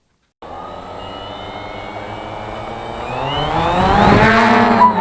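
Cheerson CX-20 quadcopter's four brushless motors and propellers spinning steadily, then rising in pitch and getting louder from about three seconds in as the throttle comes up.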